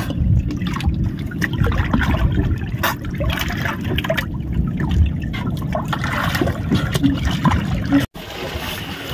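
Seawater sloshing and splashing around a swimmer holding onto a boat's bamboo outrigger, with irregular small splashes. The sound drops out briefly about eight seconds in.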